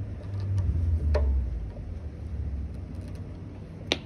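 A few light clicks as the worm-gear hose clamp on a pod air filter is screwed tight, with a sharper click near the end, over a steady low rumble.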